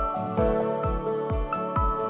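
Background music: held, soft tones over a low kick-drum beat at about two beats a second.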